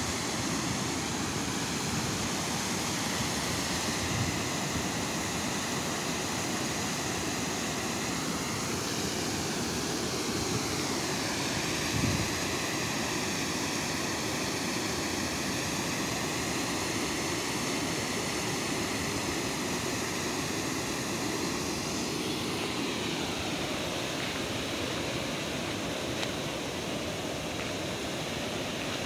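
Water spilling over the long crest of a check dam weir and churning white in the pool below: a steady, even rushing. A brief bump sounds about twelve seconds in.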